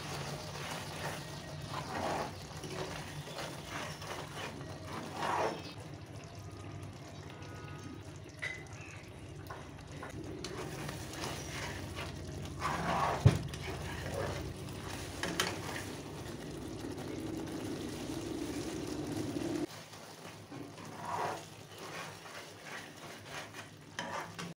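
Thick curry gravy simmering in a nonstick pan and being stirred and scraped with a plastic spatula, with scattered scraping noises and one sharp knock about 13 seconds in, over a steady low hum.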